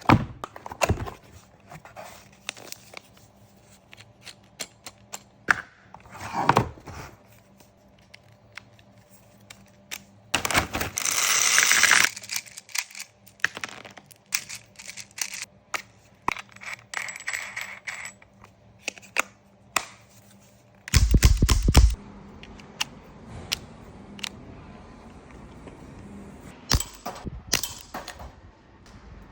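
Umarex H8R CO2 airsoft revolver being handled: many sharp metallic clicks and clinks from its mechanism and parts. A hiss lasts over a second about ten seconds in, and a loud heavy thump comes about 21 seconds in.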